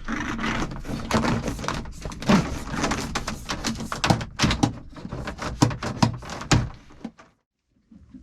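Knocking, clattering and scraping as a boat's throttle cable is pushed and worked through a cramped bilge, with many short irregular knocks. The sound cuts out briefly about seven seconds in.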